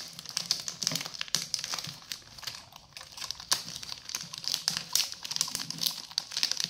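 Plastic food packet crinkling and crackling as it is handled, in a quick run of small sharp clicks.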